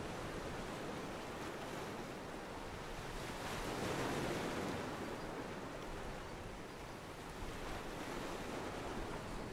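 Ocean water washing against a pier, from a stock sound-effect track laid over the footage: a steady wash that swells briefly about four seconds in.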